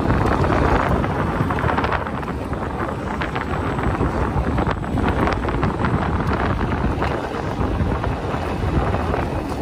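Wind rushing over the microphone of a moving Segway Ninebot GoKart Pro electric go-kart, with tyre noise and many small crackles from rolling over sandy pavement.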